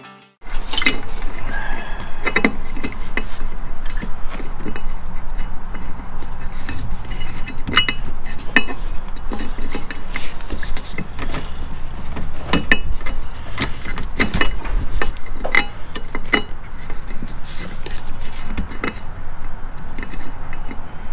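Irregular metallic clinks, clicks and knocks of hand tools and metal parts being handled during hands-on repair work, over a low steady hum.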